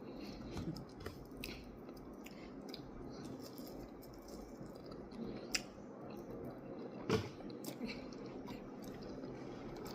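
A person chewing and biting hot wings glazed in hot sauce and honey, close to the microphone, with wet mouth sounds and scattered sharp clicks, the loudest about seven seconds in.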